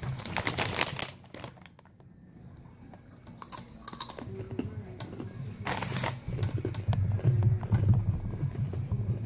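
Crinkling of a snack bag being handled, then close-up crunching and chewing of crunchy chips, a rapid crackle of clicks over a low rumble from about six seconds in.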